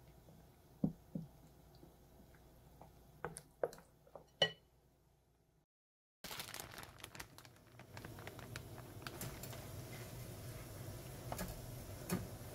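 A wooden spoon stirring frying batter in a glass bowl, knocking against the glass several times; one knock rings briefly. After a short break, water bubbling at a rolling boil in a frying pan, with small crackles and clicks.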